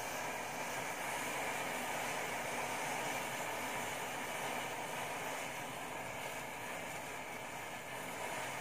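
Rows of standing matchsticks burning, their heads catching one after another in a steady fizzing hiss.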